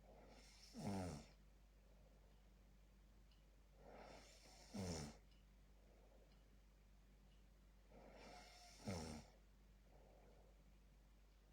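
A sleeping person snoring: three snores about four seconds apart, each a quieter breath followed by a louder snore that drops in pitch.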